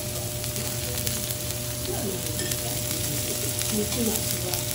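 Olive Wagyu fillet steak searing on a hot teppanyaki griddle: a steady crackling sizzle, with a steady low hum underneath.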